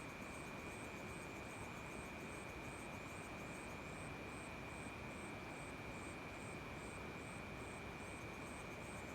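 Crickets calling at night: one steady, unbroken high trill, and above it a very high chirp repeating about twice a second, over a faint hiss.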